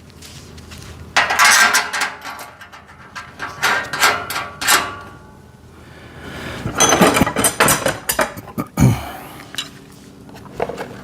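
Metal rack parts and screw hardware clinking and clattering as they are handled and fitted together. The clatter comes in three bursts of sharp clinks with a little ringing, with quieter gaps between.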